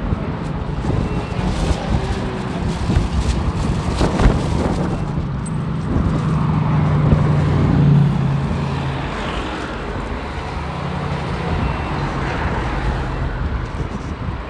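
Street traffic: a motor vehicle's engine running close by over steady road noise, swelling to its loudest about seven or eight seconds in. There is a single sharp click about four seconds in.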